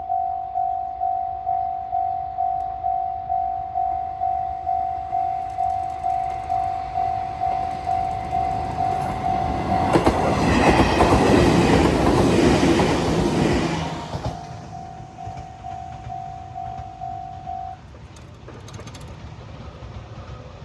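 Level-crossing warning bell dinging about twice a second. About ten seconds in, an Izuhakone Railway 3000 series electric train runs through the crossing, loud for about four seconds. The bell keeps ringing after the train has gone and stops a few seconds before the end.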